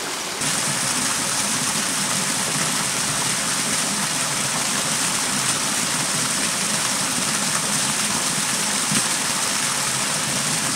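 Small waterfall splashing steadily into a rocky stream pool, a continuous rush of water that grows louder about half a second in. A single light knock near the end.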